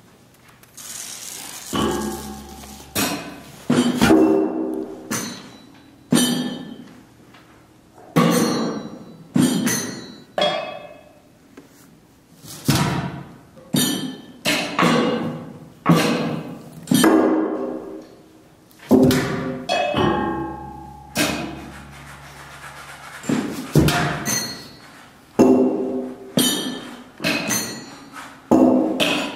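Live percussion ensemble playing sparse single strokes, about one a second, each ringing with a clear pitch and fading before the next; a short rustling hiss about a second in.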